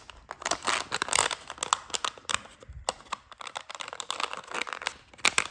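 Thin 3D-printed plastic strips being flexed, pulled and folded together by hand, giving irregular crinkling and sharp clicking as the flaps are worked into place.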